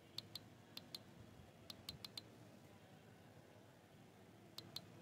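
Faint clicks of computer keys being pressed, about ten in all, mostly in quick pairs, over the first two seconds and again near the end.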